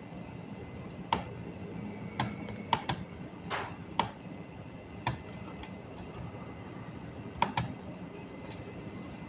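Sharp, scattered clicks of a computer mouse, about eight in all at irregular intervals, two of them quick pairs like double-clicks.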